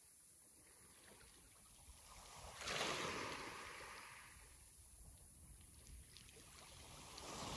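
Sea waves breaking on a shore. One wave breaks a bit under three seconds in and washes back out slowly, and the next is starting to break near the end.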